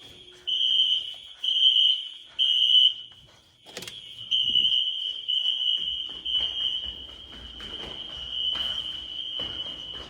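Building fire alarm sounding a high-pitched beeping tone: three beeps in the temporal-three evacuation pattern, a pause, then a longer, more continuous tone from about four seconds in. The alarm was set off by a room's smoke detector. A sharp click comes just before the tone resumes.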